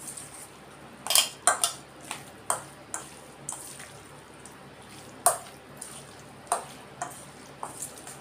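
Steel spoon mixing raw prawns into a thick chilli and spice marinade in a stainless steel bowl: irregular clinks and scrapes of metal on the bowl, about a dozen of them.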